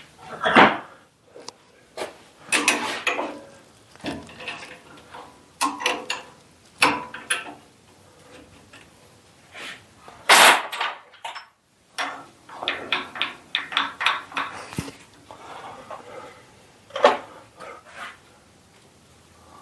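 Irregular clanks, scrapes and knocks of hand tools and a metal workpiece being handled at a workbench, including a quick run of ticks about two-thirds of the way in. No machine is running.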